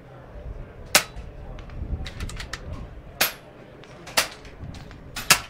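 Air rifles firing on a shooting line: four sharp shots, about a second in, just past three seconds, a second later, and near the end.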